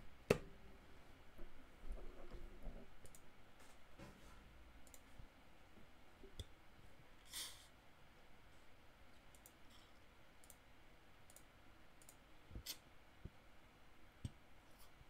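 Faint, scattered clicks of a computer mouse at a desk, the loudest just after the start, with a short puff of noise about seven seconds in.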